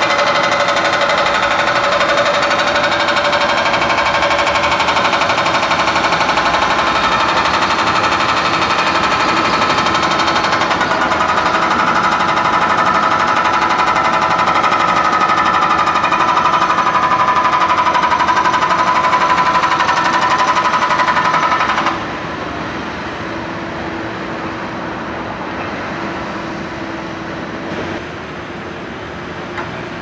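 Hydraulic breaker on a Caterpillar 420E backhoe loader hammering pavement with a loud, fast, steady rattle. About two-thirds of the way in it drops sharply to a quieter steady machine noise.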